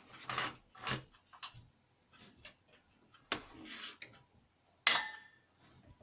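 Handling noises: scattered clicks and knocks, and a sharp metal clink with a short ring about five seconds in, as the heat gun's metal nozzles are set down on a plastic cutting mat.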